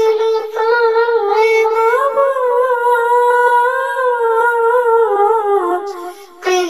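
A single high-pitched voice singing one long, drawn-out, wavering phrase of a sholawat (Islamic devotional song), unaccompanied, breaking off briefly near the end.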